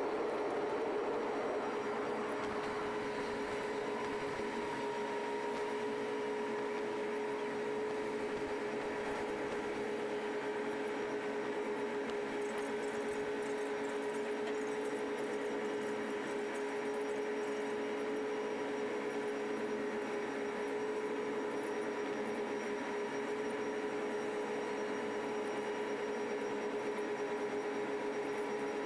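Steady machinery drone of a large car ferry heard from its open upper deck: a constant hum with one strong mid-pitched tone over a low rushing noise, as the ship manoeuvres slowly to dock.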